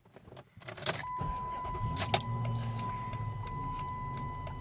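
Dodge Charger started up: a few clicks, then a steady low idle hum with a continuous high electronic tone from the car over it, both setting in about a second in.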